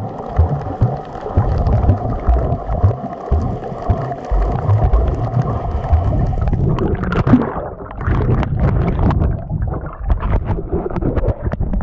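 Water heard through an action camera held under water while snorkeling: a muffled rumble with irregular low thumps from movement. In the second half it turns to splashing and bubbling, with many small clicks, as the camera comes up toward the surface.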